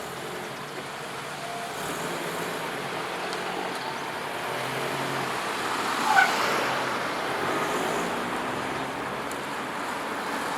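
JR Wakayama Line train running at a level crossing: a steady rolling noise that slowly grows louder, with one brief sharp sound about six seconds in.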